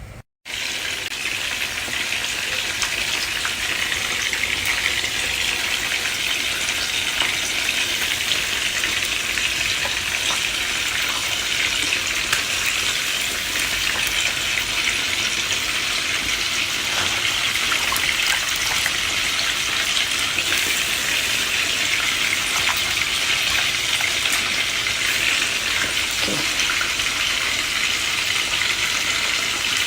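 Steady hiss and bubbling of a pot of vegetable soup boiling hard on the stove, starting after a short dropout.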